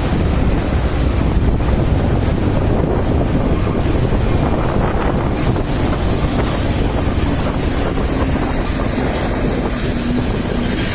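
Wind buffeting the microphone over a steady low rumble of heavy road traffic, with no horn sounding.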